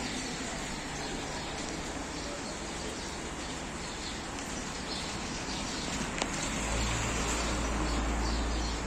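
Outdoor street ambience with faint bird chirps over a steady background hiss. There is a single sharp click about six seconds in, and a low rumble for the last two seconds or so.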